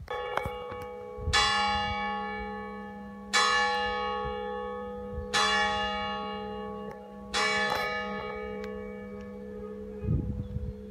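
Single church bell, the A-flat (Lab3) bell of a three-bell ring, tolled slowly. About five strokes come two seconds apart, each ringing on and fading over a steady low hum.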